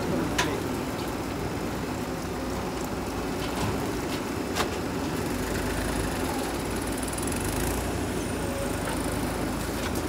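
Diesel engines of a JCB 3DX backhoe loader and a Mahindra tractor running steadily while mud is loaded into a trolley, with a couple of sharp knocks. A deeper low rumble joins about halfway through.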